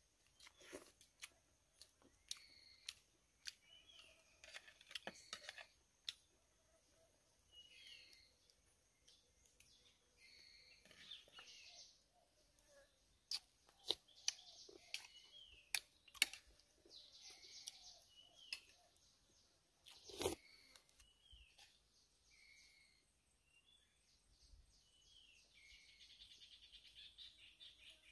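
Faint small-bird chirping, short falling notes repeated again and again, with scattered sharp clicks and taps, the strongest about twenty seconds in.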